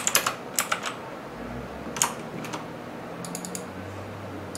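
Computer keyboard typing: a few short, scattered bursts of key clicks, as a value is entered.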